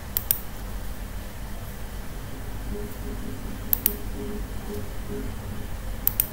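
Computer mouse button clicked three times, each a quick double tick: just after the start, near four seconds and again near the end. A steady low hum runs underneath.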